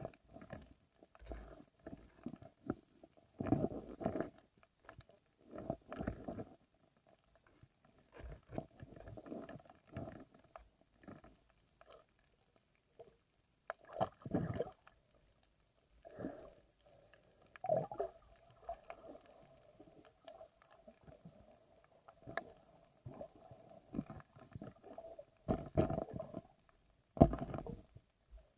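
Muffled underwater sound from a camera in a waterproof housing: irregular dull knocks and swishes as it is moved through the water by a diver, over a faint steady hum.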